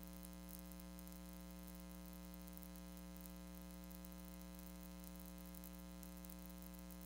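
Faint, steady electrical mains hum with a buzzing edge and light hiss, unchanging throughout; no other sound.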